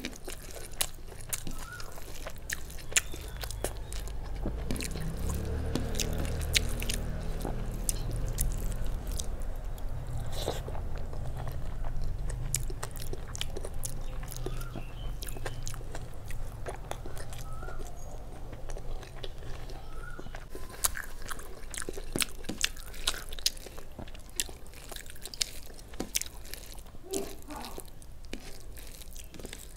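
Close-miked chewing and sharp mouth clicks of a person eating rice mixed with moong dal and fried okra by hand. A low rumble runs underneath for much of the first two-thirds.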